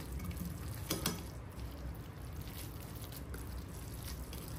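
Creamy rice being spooned out of a pot into a serving dish: soft wet scooping and scraping, with a couple of clinks of utensil on dish about a second in.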